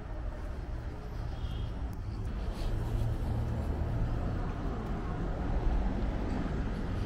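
Street ambience of a city: a steady hum of road traffic from nearby streets, growing a little louder about two and a half seconds in.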